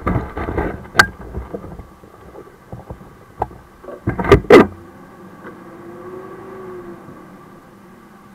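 Sharp knocks and thumps from a camera being handled and bumped inside a fire truck's crew cab, one about a second in and the loudest pair around four and a half seconds in. Under them the truck's engine runs steadily, and it is all that is left after about five seconds.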